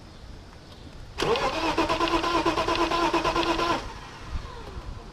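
BMW 325is straight-six being cranked by its starter for about two and a half seconds, turning over fast and evenly without catching, then cutting off. The car won't start, which the owners put down to the fuel pump.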